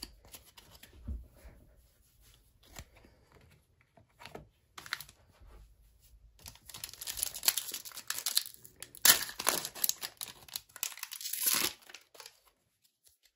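Foil wrapper of a trading-card pack being torn open and crinkled in the hands. The first half is quiet with a few light ticks; from about halfway the crinkling and tearing come thick and loud, with the loudest rips near the end.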